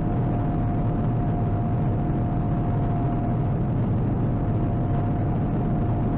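John Deere combine running steadily under load, a low engine drone with a constant whine running over it.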